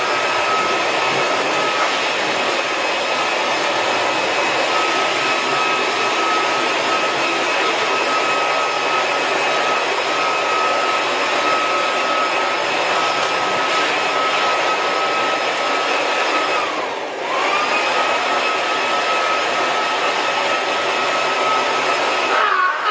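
A small motor-driven fan or blower running steadily: a rush of air with a high whine over it. About 17 seconds in the whine sags in pitch and level, then climbs back to speed.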